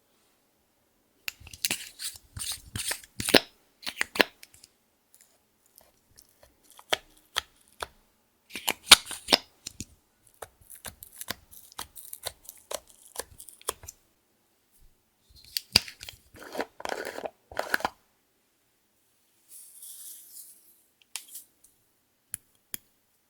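Clear slime being worked by hand, giving bursts of wet clicks and crackles with short pauses between them.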